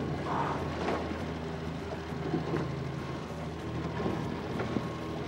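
A boat's motor running steadily, under a haze of wind and water noise.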